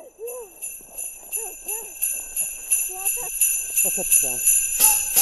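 Sleigh bells shaken in a steady rhythm, about three shakes a second, growing louder towards the end, with a few short voice sounds rising and falling faintly underneath.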